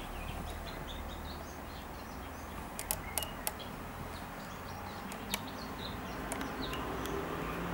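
Small birds chirping in the background, in many short scattered calls, with a few sharp clicks about three seconds in and again a little after five seconds, over a low steady hum.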